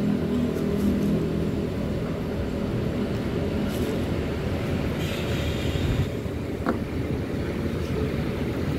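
Steady low engine rumble from a car manoeuvring slowly and passing close by, with a large bus standing with its engine running next to it.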